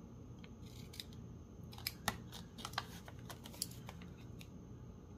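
Scissors snipping through a strip of embossed paper edged with washi tape: a scattering of short, sharp snips at uneven intervals.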